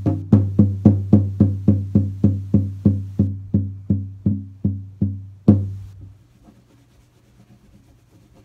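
A deep-toned hand drum beaten in a steady pulse of about three strokes a second. The strokes slow and end on one louder final stroke about five and a half seconds in, which is left to ring out, closing the drumming.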